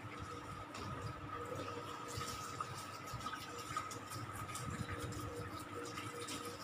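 Handheld shower sprayer running warm water over a wet cat's fur in a plastic tub, a steady spattering rinse. A faint steady hum runs underneath.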